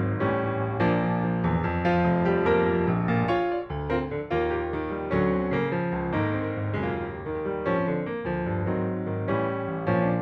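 Background piano music, a continuous run of struck notes.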